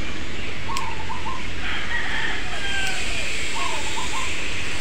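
Chickens clucking in short repeated calls, with a rooster crowing, and two sharp snips of small pruning scissors cutting ficus shoots, over a steady low rumble.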